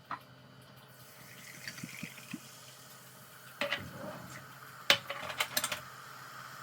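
Water running or being poured, followed by several sharp clinks and knocks, like cups or dishes being handled, the loudest about five seconds in.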